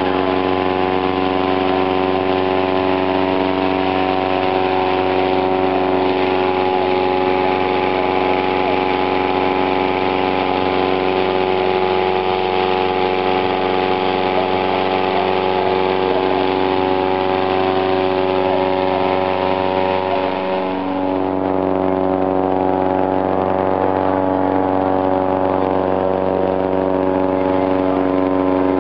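An engine running steadily at a constant speed, with an even, unchanging hum.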